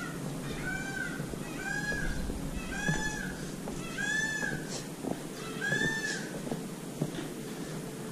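A peacock calling: a series of about six short rising-and-falling calls, roughly one a second, that stops about six seconds in.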